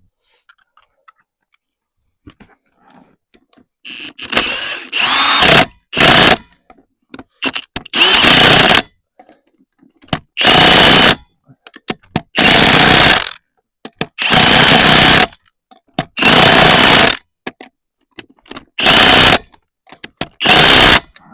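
Power tool, most likely an impact wrench, run in short bursts to tighten a wheel's lug nuts. About eight bursts start about four seconds in, each under a second long and roughly two seconds apart.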